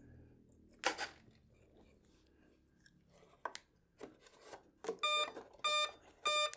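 An XT60 battery connector is pushed together with a sharp double click about a second in, followed by light handling of the wires. Near the end, the electric model's speed controller gives three short beeps of the same pitch, about half a second apart, as it powers up.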